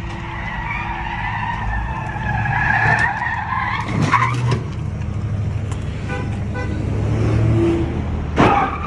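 Car tyres squealing in long wavering stretches as a car spins donuts, over the steady drone of its engine, with sharper flare-ups about four seconds in and near the end.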